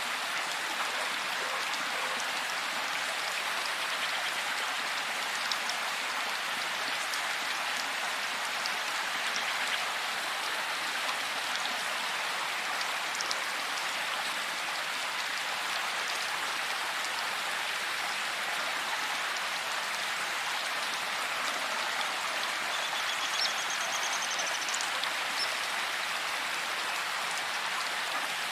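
Heavy rain falling steadily, an even hiss of drops with scattered small ticks of individual drops. A faint short high chirp sounds near the end.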